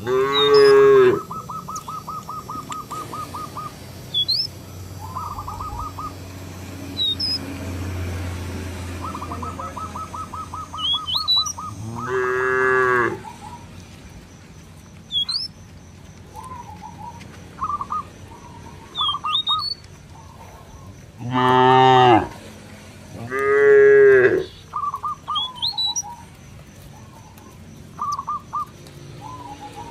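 Cows in a walking herd mooing: four long moos of about a second each, one at the start, one near the middle and two close together later on, the last two the loudest.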